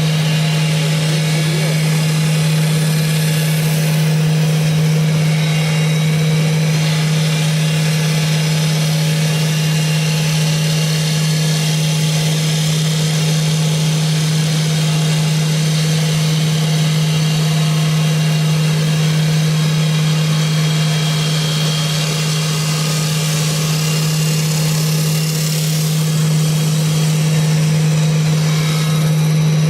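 CNC wood lathe running with a steady, constant hum and a hiss over it, unchanging throughout.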